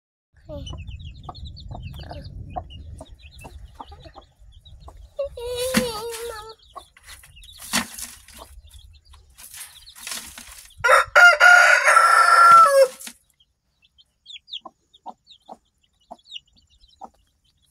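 Black Australorp hen and her brood of chicks: the chicks give short, high peeps throughout while the hen clucks, and about eleven seconds in a chicken gives a loud, drawn-out call lasting about two seconds.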